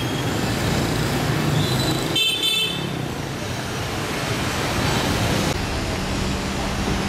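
Busy street traffic with motorbikes passing and a horn tooting briefly about two seconds in. Near the end the traffic noise gives way to a steady low hum.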